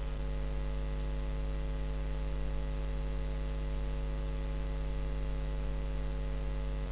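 Steady electrical mains hum with a faint hiss beneath it, unchanging throughout.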